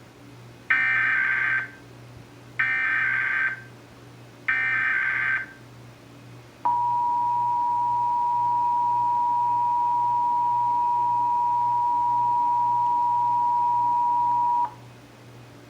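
Emergency Alert System signals for a Required Monthly Test. First come three short bursts of the digital SAME header, a warbling data tone, each about a second long. Then the two-tone attention signal of 853 and 960 Hz plays steadily for about eight seconds and cuts off suddenly.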